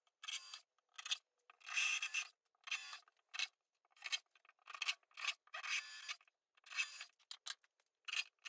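Cordless drill boring into MDF in about a dozen short bursts, each under a second, with silent gaps between. Each burst is a scraping, grinding noise with nothing deep in it.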